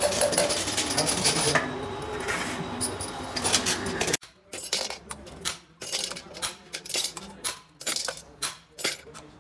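Workshop clatter with faint voices, then, after a cut, a run of sharp metallic taps and clinks, about one or two a second, as a hand tool is pressed onto the valve spring retainers of an Isuzu 4BD1 diesel cylinder head to free the valve collets.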